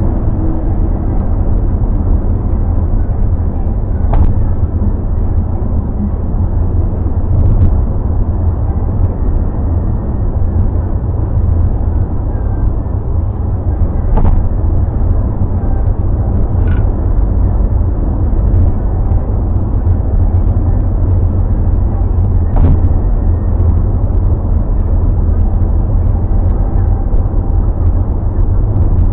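Car driving on the road, heard from inside the cabin: a steady low rumble of road and engine noise, with a few short, sharp knocks at irregular moments.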